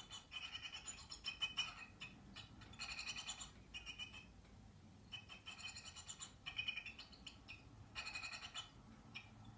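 Great tit nestlings in a nestbox calling, heard through a television speaker: repeated bursts of rapid, high-pitched chirping, each lasting half a second to a second.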